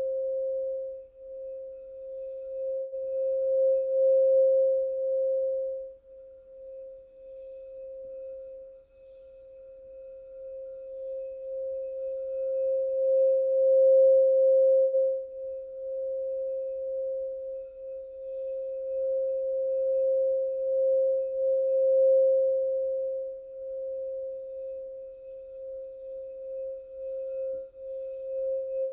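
Singing bowl held on one steady tone, kept sounding without a fresh strike, its loudness slowly swelling and fading as it is played.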